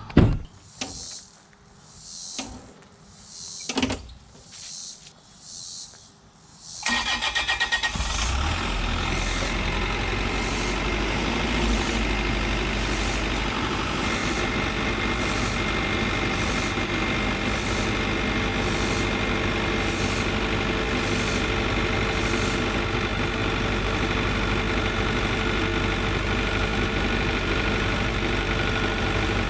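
A thump, then a regular high beep repeating about every two-thirds of a second, until a diesel engine starts about seven seconds in and settles into a steady idle. The beeping carries on over the idle for a while, then stops.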